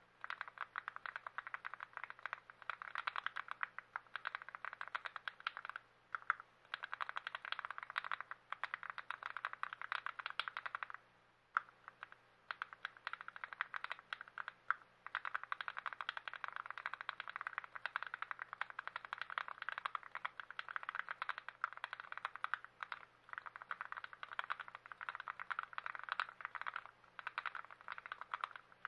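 Fast typing on a lubed TX66 custom mechanical keyboard: a dense, continuous stream of key clicks, with short pauses about 6 and 11 seconds in.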